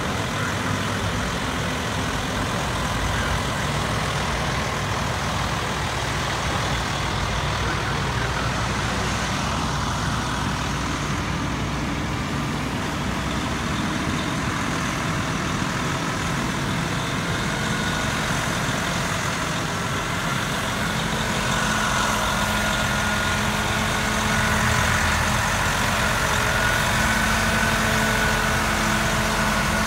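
A heavy engine running steadily, growing slightly louder with an added steady tone about two-thirds of the way in.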